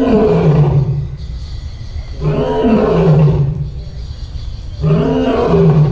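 Lion roaring: three deep, loud calls about two and a half seconds apart, each falling in pitch.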